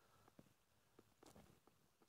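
Near silence: outdoor quiet with a few faint, short ticks.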